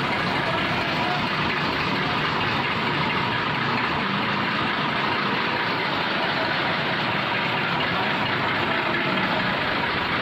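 Massey Ferguson 240 tractor's three-cylinder diesel engine idling steadily.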